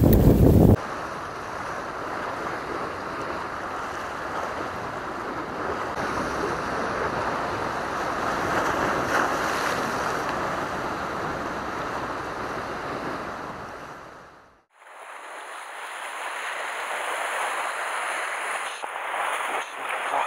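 Sea surf washing against a rocky shore as a steady rushing hiss, with wind buffeting the microphone in the first second. About fifteen seconds in, the sound cuts out briefly and comes back as a thinner, higher hiss of surf.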